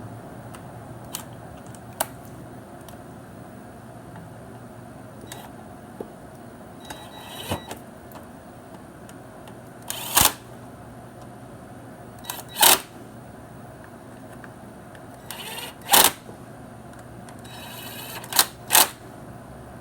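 Cordless impact driver running the primary cover bolts in, in several short bursts, the last two close together, with a few light clicks of tool handling between.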